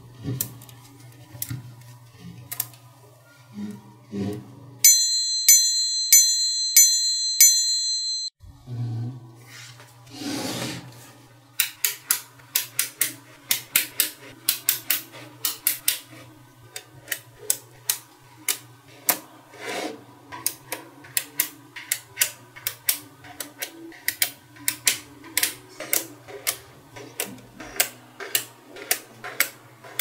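Small neodymium magnet balls clicking sharply against each other as they are snapped into rows and slabs by hand, several clicks a second through the second half, over a steady low hum. For about three seconds near the start, a jingle of repeating bell-like chimes plays.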